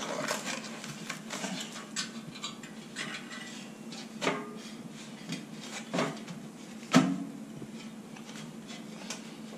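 Handling noise of Summit Viper SD climbing tree-stand parts and packaging being moved about: scattered knocks and light clinks, the sharpest knock about seven seconds in.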